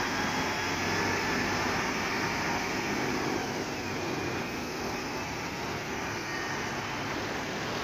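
Steady road traffic noise: engines running and tyres on the road, at an even level.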